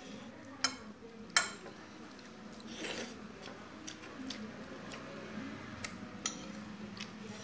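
A person eating rice and vegetables by hand from a plate, with chewing and handling of food. There are a few sharp clicks and taps, two loud ones in the first second and a half, and a softer rustle about three seconds in.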